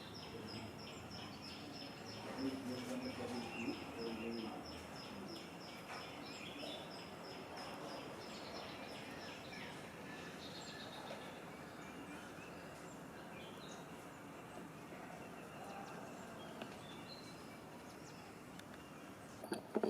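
Outdoor ambience with a high-pitched note repeated rapidly and evenly, which stops about ten seconds in.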